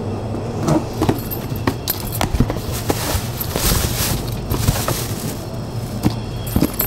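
Cardboard carton being opened and handled, with knocks and taps against the box and a plastic liner bag rustling as it is pulled back, loudest around the middle. A steady low hum runs underneath.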